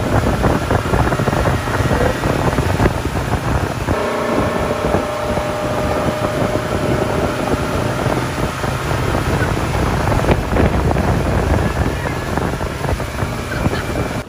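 Motorboat under way, its engine running with the rush of churning wake water and heavy wind buffeting the microphone.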